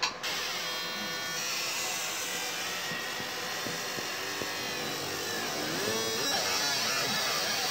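Laser engraving machine marking a logo into a black-painted motorcycle exhaust tip: a steady electric buzz and whine whose pitch wavers and glides as the beam traces the design.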